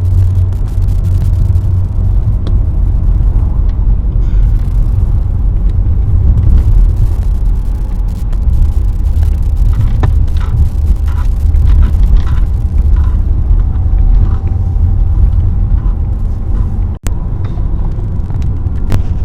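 Steady low rumble of a car driving along a road, road and engine noise heard from the moving car, with a brief dropout about two seconds before the end.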